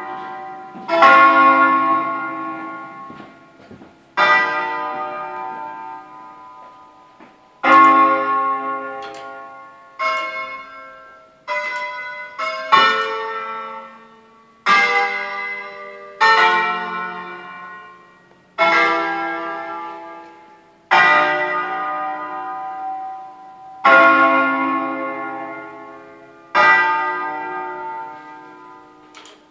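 Church bells from a set of eight bells in D-flat cast by L. D'Adda in 1954, rung by hand as a slow melodic concert. The strokes are single and come about every two to three seconds, each ringing out and fading, with a quicker run of three strokes about halfway through.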